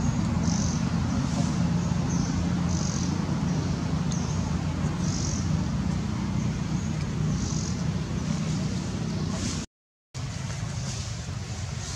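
A steady low mechanical hum, like a motor running, with short high-pitched bursts about once a second. The sound cuts out for a moment about ten seconds in.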